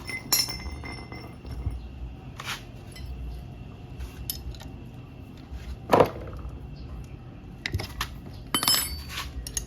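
Metal hand tools and small steel parts clinking and tapping on a differential carrier while its bearing adjuster locks are undone, in scattered clinks with a sharper knock about six seconds in and a quick run of clinks near the end.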